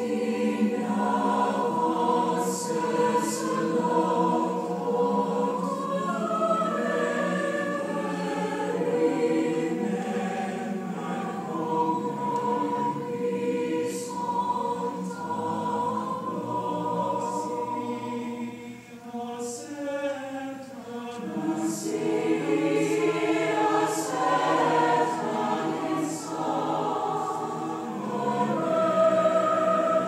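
Choir singing sustained chords, the harmony shifting slowly, with brief sharp 's' sounds from the singers now and then.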